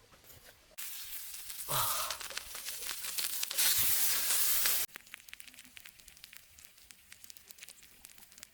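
Pork sizzling on a hot stone: a loud, even hiss that starts suddenly about a second in and cuts off sharply about five seconds in, followed by faint crackling.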